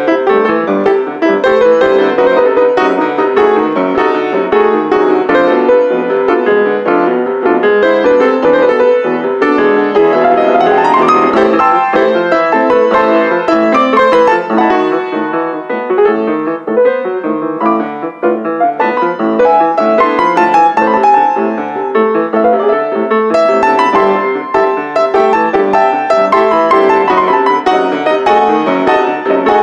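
Grand piano played four hands, a continuous passage of many notes, with a quick upward run about ten seconds in.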